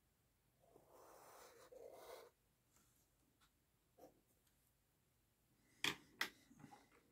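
Felt-tip marker scratching across paper for about a second and a half as lines are drawn, then a faint tick. Near the end come two sharp clicks in quick succession, the loudest sounds here.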